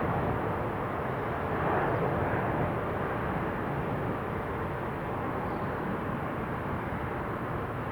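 Jet airliner engine noise, a steady rumble and hiss that slowly fades.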